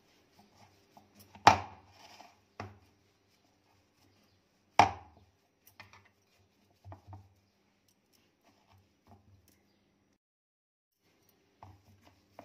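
Hands pressing buttered shredded kunafa dough into a metal ring pan: soft rustling and light taps, with two sharp knocks against the pan about a second and a half in and near five seconds.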